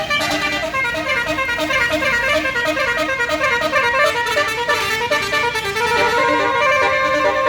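Bus's Basuri telolet melody horn playing a fast tune of short stepping notes, which turn into longer held notes near the end.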